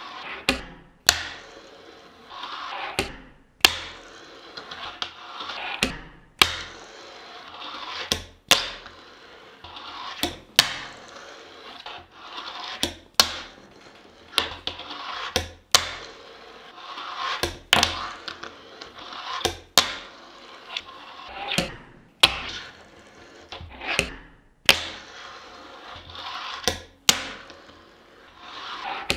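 A fingerboard rolling on a wooden tabletop, its tiny wheels making a rolling hiss, broken every two to three seconds by pairs of sharp wooden clacks about half a second apart: the tail popping off the wood and the board landing back on it.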